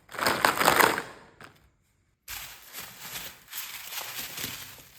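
Slime being squished and worked by hand, giving a wet, crackly clicking. It comes in two stretches with a short break of silence between them.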